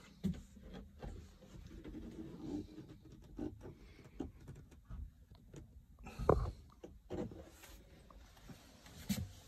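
Scattered light knocks and rustles of someone moving about in a small boat cabin and handling the phone, with a louder thump about six seconds in and another shortly before the end.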